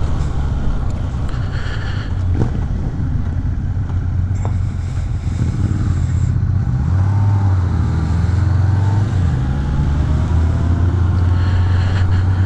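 Yamaha motorcycle engine running steadily at low road speed, heard from on board the bike. It pulls harder for a couple of seconds about halfway through, then settles back to a steady hum.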